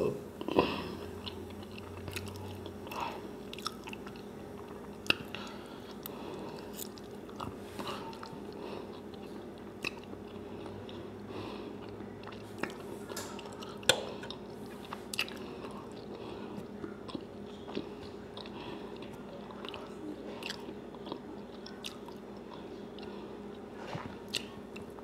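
A person chewing and biting a mouthful of country fried steak and broccoli close to the microphone, with scattered sharp mouth and fork clicks. A steady low hum runs underneath.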